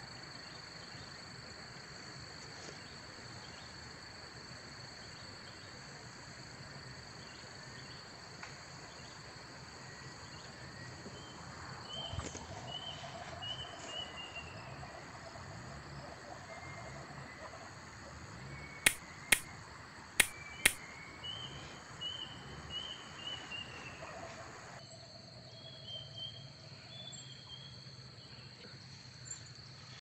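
Nature ambience: a steady high insect trill with repeated bird chirps over it, and four sharp clicks in two quick pairs about two-thirds of the way through.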